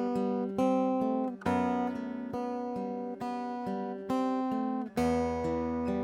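Acoustic guitar playing the song's instrumental intro: plucked and strummed chords, a new chord every second or so, each left to ring out.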